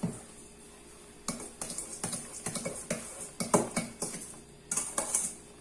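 Metal spoon stirring sugar into stiff beaten egg whites in a stainless steel bowl, scraping and knocking against the bowl at irregular intervals from about a second in.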